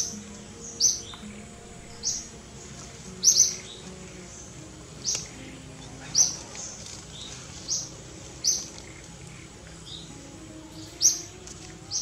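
A bird calling over and over, giving short, sharp, high chirps that fall in pitch, about one every second or so.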